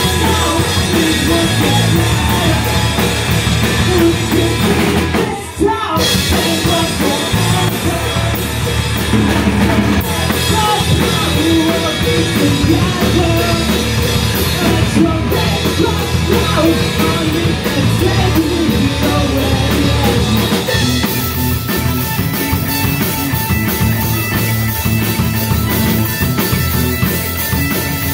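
Live punk/emo rock band playing: electric guitar, electric bass, drum kit and a singing lead vocalist. The music drops out for a moment about five seconds in, and the cymbals get louder over the last several seconds.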